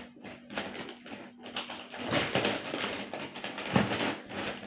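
Shopping packaging rustling and crinkling as groceries are handled and sorted, in irregular bursts.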